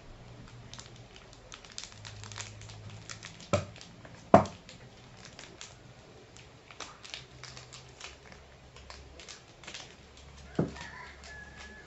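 Plastic sweet wrappers crinkling as they are handled and cut open with scissors. There are many small crackles and a few sharp clicks, the loudest about four seconds in.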